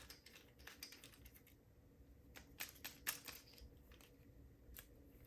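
Faint, irregular small metallic clicks and scrapes of a driver bit working at a PACLOCK UCS-2A padlock to open it up, with a few quick clicks close together about two and a half to three seconds in.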